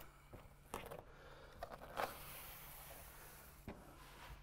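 Faint crinkles and rustles from a Wakaflex butyl-rubber flashing sheet being pressed by hand into a roof valley: a few short handling sounds over a low hiss.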